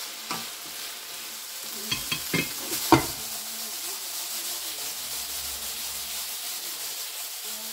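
Diced marinated chicken sizzling steadily in a non-stick frying pan as it is stirred and then shaken, its liquid cooked off so it is dry-frying. A few sharp knocks of the wooden spatula against the pan come about two to three seconds in, the last the loudest.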